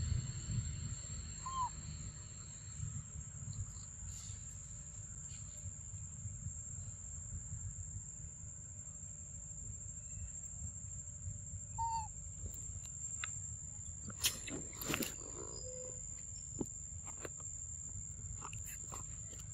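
Outdoor forest ambience: a steady, thin high whine over a low rumble. A short call that rises and falls comes about twelve seconds in, and two sharp clicks follow a couple of seconds later.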